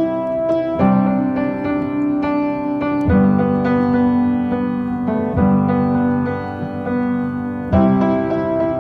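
Piano-led background music: slow sustained chords that change every two to three seconds.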